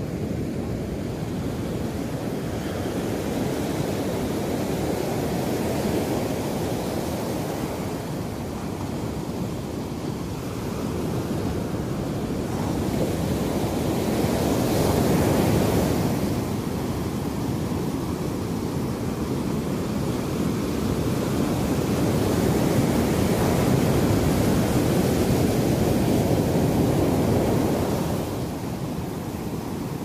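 Small Indian Ocean waves breaking and washing up a sandy beach: a continuous surf noise that swells louder around the middle and again through the last third, easing off near the end.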